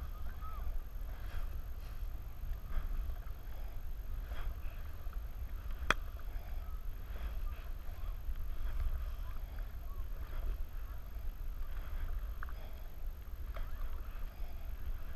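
Double-bladed kayak paddle dipping and pulling through lake water in repeated strokes, with light splashes and drips, over a steady low rumble. A single sharp click about six seconds in.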